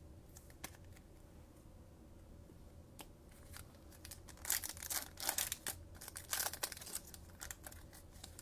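Trading-card pack wrapper being torn open and crinkled by hand, a flurry of short tearing and rustling sounds from about four and a half to seven and a half seconds in, after a couple of light clicks.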